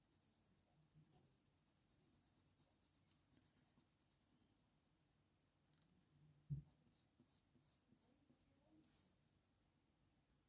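Very faint, quick, light strokes of a Faber-Castell Polychromos coloured pencil scratching on smooth hot-press paper. There is a single soft thump about six and a half seconds in.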